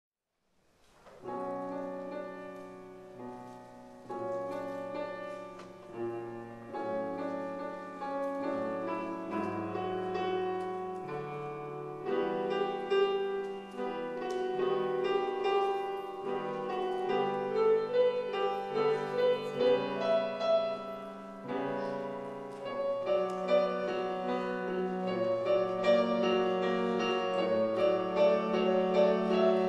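Solo grand piano playing a slow piece of held chords and melody notes, starting about a second in and growing fuller and louder about halfway through.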